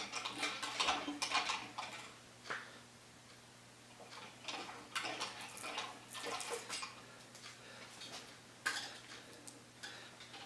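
Manual hand-cranked wire stripper being worked on solid 14-gauge wire: irregular metallic clicks, clinks and scraping, busiest in the first two seconds, with a sharp click about two and a half seconds in and another near nine seconds.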